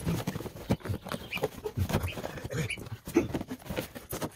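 Siberian husky pawing and biting at a cardboard shipping box to get it open: a quick, irregular run of cardboard scrapes and scuffs, with the dog's own noises mixed in.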